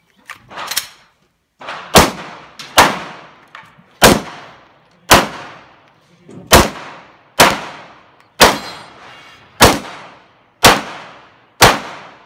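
Pistol shots: about eleven single shots at a steady pace of roughly one a second, each sharp crack trailing off in echo.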